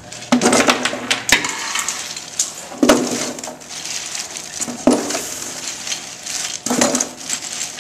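Objects being handled: rustling and clattering, with sharp knocks about a second in, near three seconds, near five seconds and near seven seconds.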